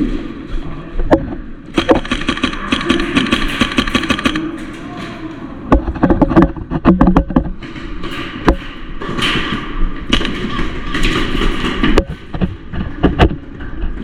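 Airsoft gunfire: a rapid full-auto burst of evenly spaced snaps about two seconds in, then scattered single shots and sharp knocks, with clusters of them near the middle and near the end.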